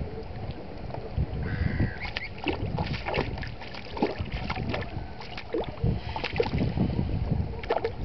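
Shallow water splashing and lapping as a young mute swan wades ashore at the water's edge, in irregular short splashes over a low wind rumble on the microphone. A brief bird call sounds about a second and a half in.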